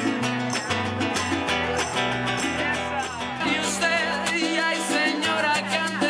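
Live Latin band playing upbeat salsa-style music: strummed acoustic guitar over a bass line, with timbales and conga. A man's singing voice comes in about halfway through.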